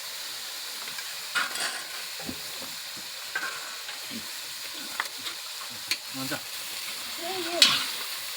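Buffalo meat frying for bhutuwa, with a steady sizzle and scattered sharp clicks and scrapes of the pan being stirred.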